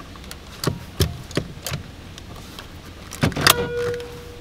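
Steering-wheel airbag module being pushed into the hub of a Holden Commodore's wheel, snapping home with a few sharp clicks in the first two seconds. About three seconds in, the car's horn sounds once, a steady tone held for about a second, as the freshly refitted horn pad is tested.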